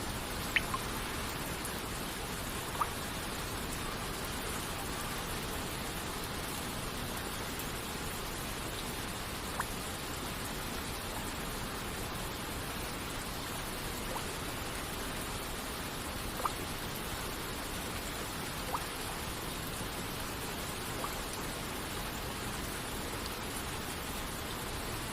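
Steady hiss of rain and falling water, with single water droplets plinking at irregular intervals every few seconds.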